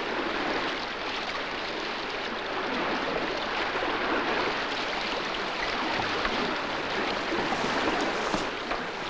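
Steady rushing and splashing of sea water, as under small boats under way.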